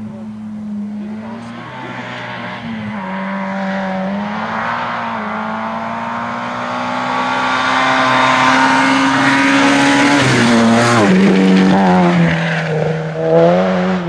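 Citroën Saxo rally car's engine revving hard on a gravel stage. The engine note climbs steadily and grows louder as the car approaches, drops sharply about ten seconds in, then rises again as the car comes close.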